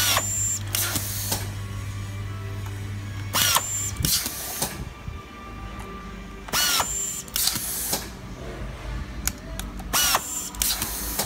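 Electric screwdriver of a handy-type screwing machine driving screws into plastic tape-measure cases. Four short runs about three seconds apart, each a motor whine rising in pitch, followed about half a second later by a second short burst.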